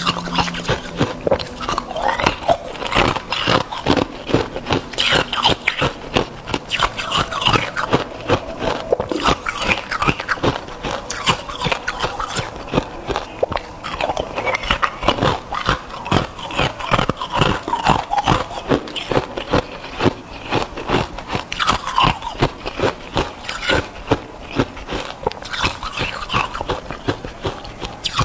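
A person biting and chewing round pieces of hard ice, a dense, irregular run of sharp cracks and crunches.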